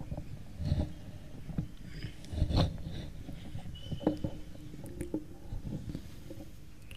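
Microphone handling noise: a few soft thumps and scrapes over a low steady hum from the sound system, the strongest about a second in and again near two and a half and four seconds.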